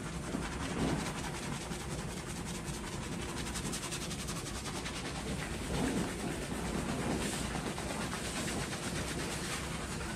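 Both hands scrubbing a thick shampoo lather into a head of hair: a fast, even, wet scratching of fingers through foam.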